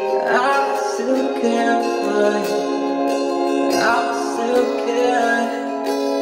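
Background music: a pop song playing steadily.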